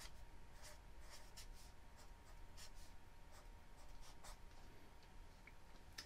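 Black marker writing on spiral-notebook paper: a run of short, faint strokes at an uneven pace as words are written out.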